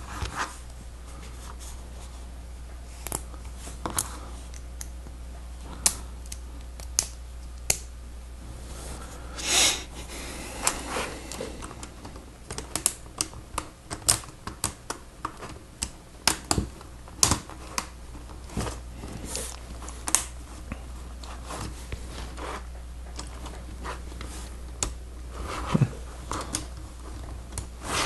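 Lego Technic plastic parts clicking against each other and being snapped together by hand: irregular sharp clicks, with a short rustle of handled parts about nine and a half seconds in.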